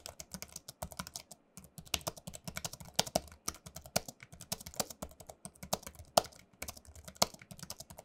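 Typing on a Microsoft Designer Bluetooth Desktop keyboard's low-profile chiclet-style keys: a quick, uneven stream of soft key clicks, with short pauses about one and a half seconds in and again near six and a half seconds.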